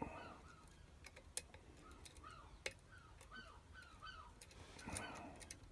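Faint scattered clicks of a lock pick working the pins inside a pin-tumbler lock, over a faint, squeaky chirping repeated a few times a second.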